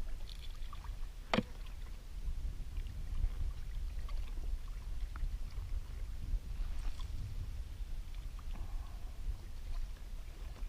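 Water sloshing against a kayak hull with a steady low rumble, and one sharp knock about a second and a half in.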